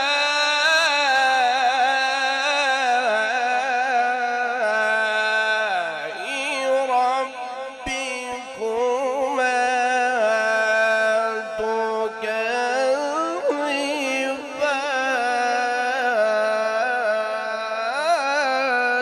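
A male qari reciting the Quran in the melodic tilawat style, holding long notes with ornate rising and falling turns.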